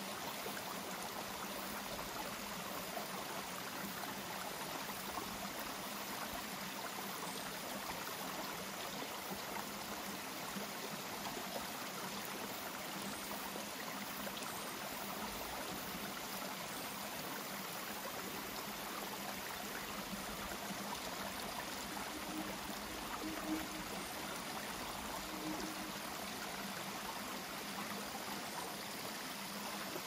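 A forest stream running over rocks: a steady, even rush of water that stays the same throughout.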